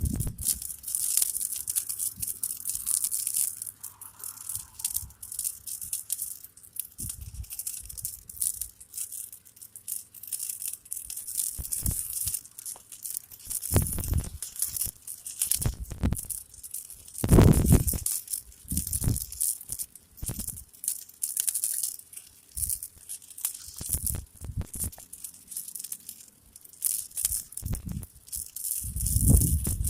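A large mass of burning matches crackling and hissing steadily, with scattered sharp crackles and a few louder low thumps.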